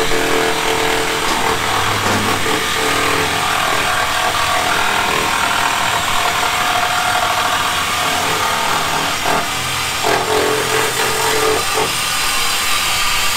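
Handheld power tool running steadily against the BMW 328i's exhaust pipe under the car, the exhaust being cut and worked on to delete the muffler and resonator.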